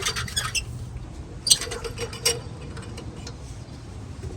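Light metal clicks and rattles of a 17 mm socket wrench turning wheel lugs off a Mercedes ML63 hub: a quick run of clicks at the start, then single sharper clicks about a second and a half in and a little after two seconds.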